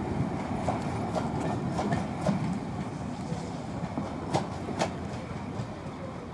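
A passenger train hauled by 60163 Tornado rolling past, its wheels clicking over the rail joints, the sound slowly fading as it moves away.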